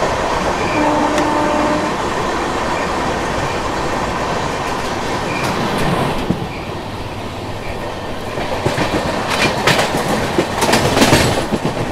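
Two express trains running side by side at speed on parallel tracks, heard from an open coach door: steady rushing wheel and wind noise, with a brief horn note about a second in. The noise drops a little after about six seconds as the other train's locomotive falls behind. Near the end comes a loud run of wheel clatter over the rail joints.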